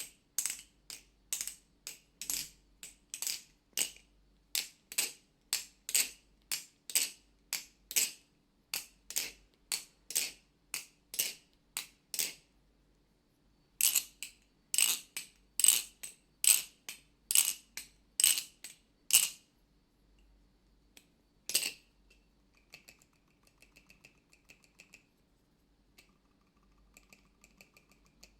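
Balisong (butterfly knife) with dry, unlubricated pivots being flipped open and shut, its handles clacking in a steady rhythm of about two sharp clicks a second. There is a short pause partway through, and only fainter, lighter clicks near the end.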